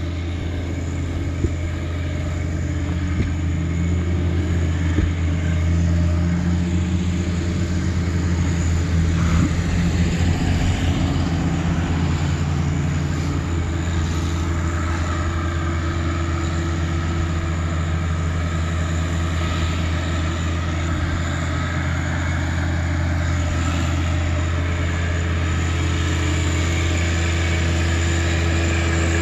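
John Deere 1025R compact tractor's three-cylinder diesel engine running steadily at working speed, driving a Nova Tractor BCRL135 offset flail mower through tall grass.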